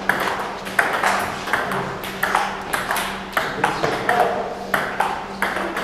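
Table tennis rallies: celluloid balls clicking off paddles and the table in quick, uneven succession, from more than one table at once. A faint steady low hum runs underneath.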